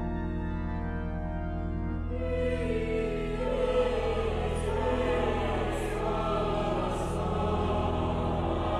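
Chapel choir singing with organ accompaniment. The organ holds steady chords over a low sustained note, and the music swells about two and a half seconds in.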